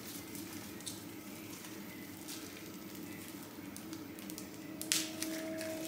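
Plastic bag, used in place of a piping bag, crinkling and crackling as chocolate icing is squeezed out of it onto a cupcake, with a sharper crackle about five seconds in.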